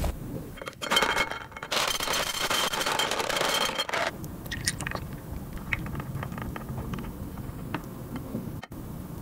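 Small chocolate balls tipped out of a cup, rattling and clattering onto a glass dish for about three seconds, then a few scattered clicks as they settle.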